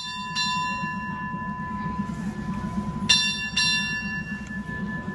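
A bell struck twice in quick succession, then twice more about three seconds later, each stroke ringing on. A steady low hum runs underneath.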